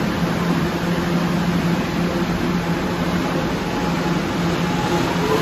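Kawasaki R211 subway train standing at an underground platform with a steady hum, then near the end a rising whine from its traction motors as it starts to pull out.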